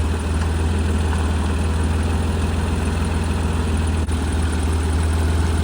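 Old John Deere tractor engine running steadily at a low, even pace, with one brief tick about four seconds in.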